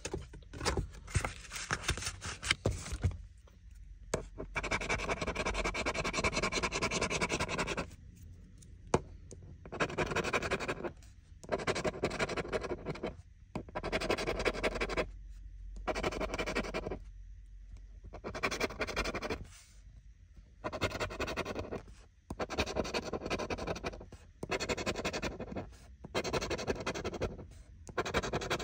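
A scratch-off lottery ticket clipped to a hardboard clipboard, its coating scraped off with the tip of a pen. The scraping comes in about a dozen strokes, most about a second long and one running about three seconds, with short pauses between them.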